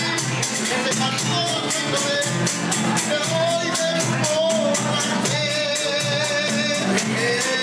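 Background music with a steady, quick beat and a gliding melody line.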